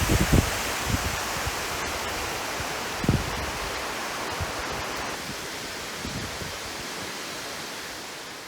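Steady rushing of water from the dam, an even hiss-like roar that fades slightly toward the end, with a couple of low thumps near the start and about three seconds in.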